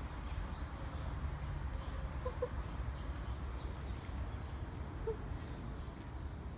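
Steady low rumble of wind on the microphone, with a few faint bird calls about two and five seconds in.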